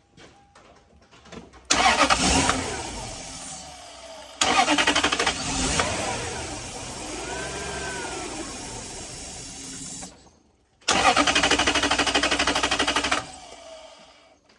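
A 1998 Toyota Celsior's 4.0-litre V8 cranking and firing up on carb cleaner poured into the intake, running briefly and then dying, three times. This is the sign of a fuel-delivery fault, which the owner takes for a failing fuel pump.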